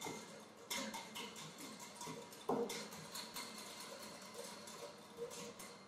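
An egg being beaten in a bowl: the utensil taps against the bowl in light, irregular clicks, several a second.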